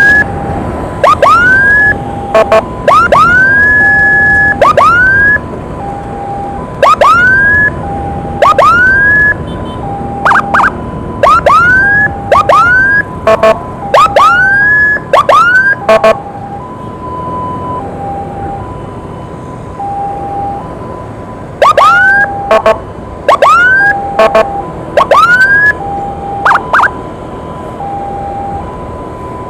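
Emergency sirens in traffic: a two-tone hi-lo siren alternates steadily between two pitches about once a second. Over it come loud, short, rising siren whoops in quick clusters: through the first few seconds, again from about seven to sixteen seconds in, and once more about three quarters of the way through.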